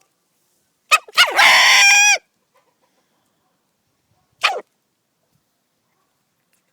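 Rooster crowing once, two short notes running into a call about a second long that drops in pitch at the end. About two seconds later comes a single short, sharp call falling in pitch, which fits the sneezing of a rooster that has choked on a grain.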